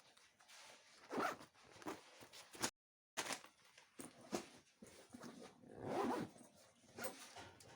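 Faint handling sounds: a series of short rasping strokes and rustles, irregularly spaced, the longest about six seconds in.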